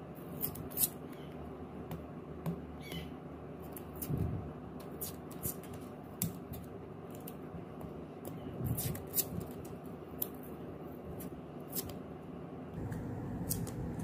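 Hands handling a freshly wound enamelled copper-wire crossover coil as it is taken off its plastic bobbin: scattered small clicks, crackles and rustles of plastic and tape, over a faint steady low hum.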